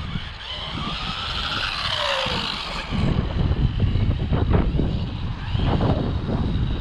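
Electric motor of a 1/12-scale RC buggy whining as it drives, the pitch rising and then falling with the throttle over the first few seconds. From about three seconds in a low rumble takes over.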